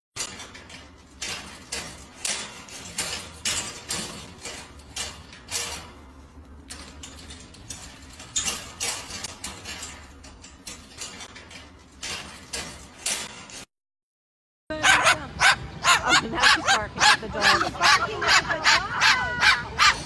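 Two green-cheeked conures chirping, short sharp calls a few each second for about thirteen seconds. After a brief silence, a small dog barking in quick repeated yips.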